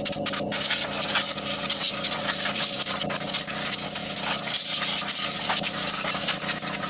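Steady engine-like machine noise running throughout, a low hum under a bright hiss, with a few faint clicks.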